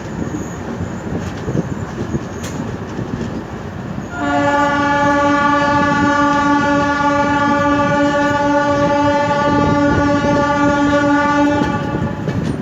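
Locomotive horn sounding one long steady blast of about seven seconds, starting about four seconds in, over the rumble of a train running at speed.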